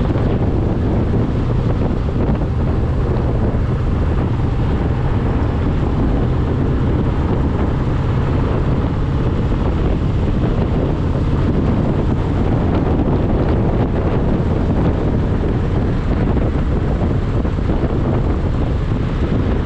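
Cruiser motorcycle engine running steadily under way, mixed with wind buffeting the microphone.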